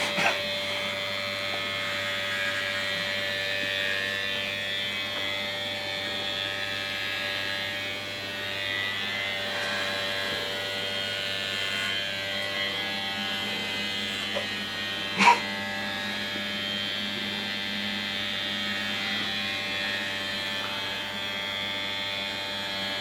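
Electric hair clippers running with a steady buzz while shaving hair off a man's head. A short sharp click about 15 seconds in.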